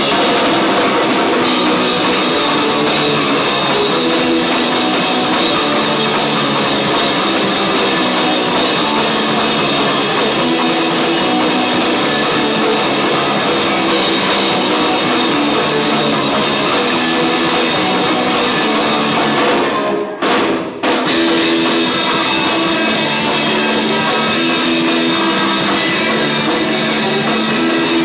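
Live rock band playing loud and dense, with electric guitar, bass guitar and drum kit. The music briefly drops out twice in quick succession about twenty seconds in.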